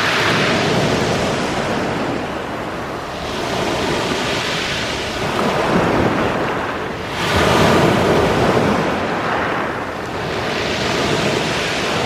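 Sea waves breaking and washing up a pebble beach, rising and falling in repeated swells, the loudest surge about seven seconds in.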